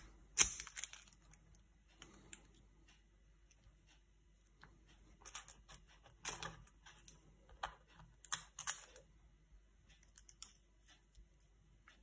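Small metal lock parts being handled as a pin-tumbler lock cylinder is taken apart: scattered light metallic clicks and taps, the sharpest about half a second in, then clusters of them a few seconds later.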